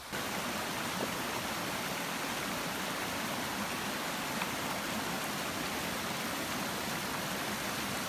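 Steady, even rush of falling water from a waterfall.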